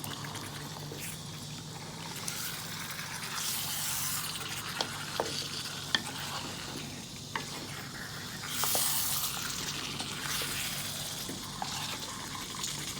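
Chicken masala sizzling in the pot as it is stirred, with a few sharp clinks of the spoon against the pot and a louder rush of sizzle about nine seconds in.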